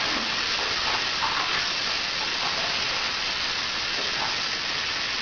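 Water running steadily in a bathtub, an even hiss.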